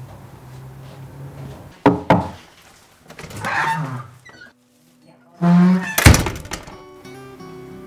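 A door shutting with a sharp thud about six seconds in, the loudest sound here, after a softer knock about two seconds in. Quiet guitar music comes in near the end.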